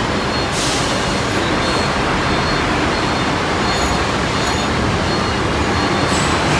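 Buses and trucks running their engines as they queue and drive off a ferry's vehicle deck: a steady rumble, with two short hisses, one about half a second in and one near the end.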